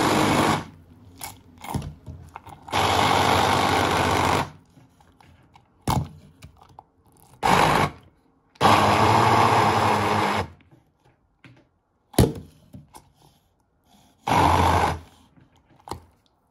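Hand blender puréeing boiled flat beans into a thick paste, switched on and off about five times in runs of up to about two seconds, some very short. A couple of sharp knocks come in the quiet gaps.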